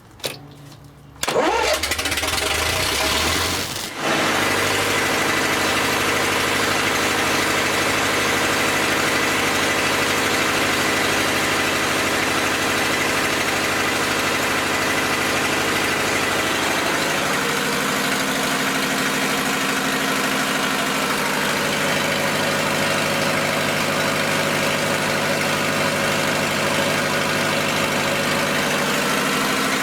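Lister diesel generator set cranked by its 24-volt electric starter for about two and a half seconds, then catching and running steadily. About halfway through, its note changes, shifting lower.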